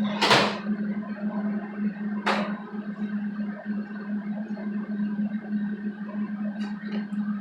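Two short bursts of welding noise, the first louder, about two seconds apart, as a welder tacks the slide hammer's tip onto the dented sheet-metal panel, over a steady electrical hum. A few faint ticks follow near the end.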